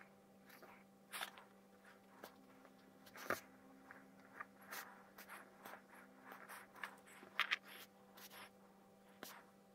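Faint handling noises of painting a plastic miniature: light scratches, rustles and taps of fingers and a fine paintbrush against the model, scattered irregularly, over a steady low hum.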